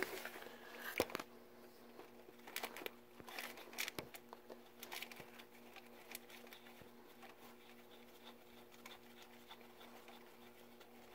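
Faint scattered clicks and rustling from a hand working in a car's engine bay, unscrewing the oil pressure switch, over a low steady hum. The handling noises thin out after about six seconds.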